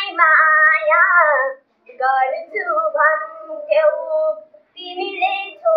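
A young schoolgirl singing unaccompanied: three held, bending phrases with short breaths between them.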